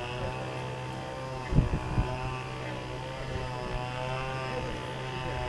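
Small quadcopter drone's propellers hovering with a steady multi-tone whine that wavers slightly in pitch, with a couple of short thumps about a second and a half in.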